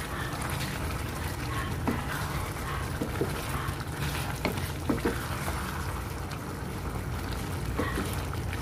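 Pork adobo sauce bubbling in a pan while a wooden spoon stirs it, knocking against the pan several times.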